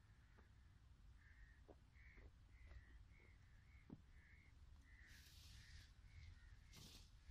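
Faint outdoor quiet with short bird calls repeating a few times a second. About five seconds in, and again near the end, come brief rustling hisses, fitting the black plastic mulch film being pulled and handled.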